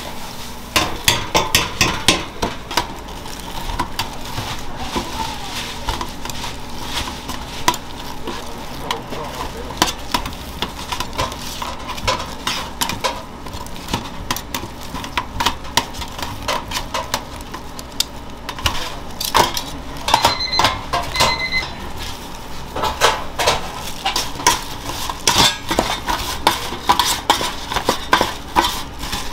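Kitchen work at a food counter: utensils clicking and clattering against metal pans and dishes, over a steady faint hum. A short run of electronic beeps sounds about twenty seconds in.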